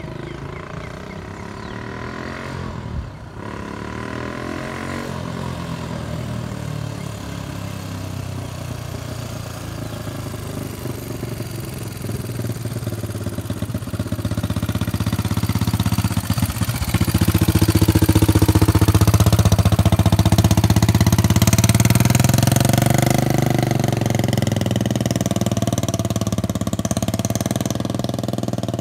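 1983 Kawasaki KLT200 three-wheeler's single-cylinder four-stroke engine running as it is ridden, its pitch rising and falling with the throttle. It grows louder as the trike comes close, peaks about two-thirds of the way through, then fades as it rides away.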